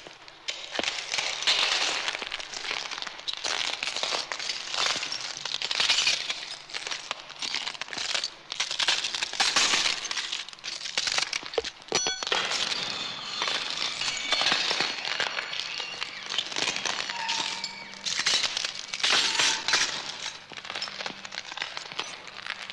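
Dense crackling and crinkling noise, full of tiny clicks, with a short break about twelve seconds in and faint steady tones through the second half.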